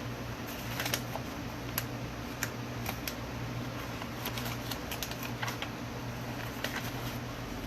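Irregular light clicks and taps of computer keys, about a dozen spread unevenly, over a steady low workshop hum.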